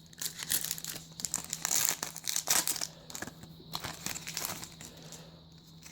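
Plastic wrapper of a Pokémon trading-card booster pack crinkling and tearing as it is worked open by hand. The crackling is busiest for the first three seconds, then thins to occasional rustles.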